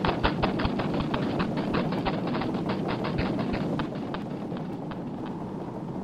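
A dense, layered soundscape collage: rapid clicking, about six clicks a second, over a low rumbling noise, with the clicking thinning out and the whole mix getting quieter about four seconds in.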